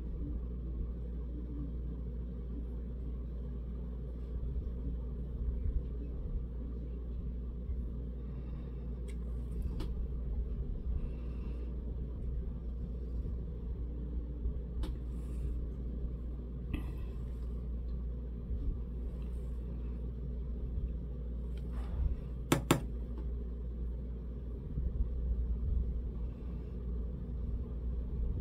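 Steady low rumble of background noise, with a few soft clicks and taps scattered through it; the sharpest pair of clicks comes about three-quarters of the way through.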